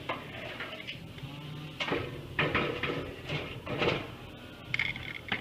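A string of irregular knocks, clatters and scrapes, loudest in the middle and near the end, over a steady low hum.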